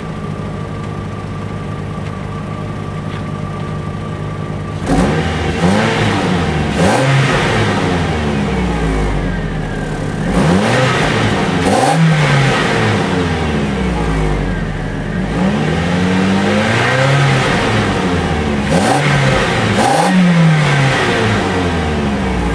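Exhaust of a 2007 Ford Focus SE hatchback's four-cylinder engine. It idles steadily for about five seconds, then is revved repeatedly, about eight quick blips, each rising and falling in pitch. The engine is cold, and its exhaust is smoking heavily.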